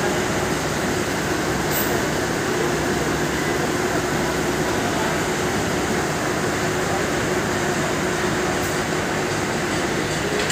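Steady drone of idling diesel coach buses, engines and air conditioning running, with a faint constant hum over an even rumble.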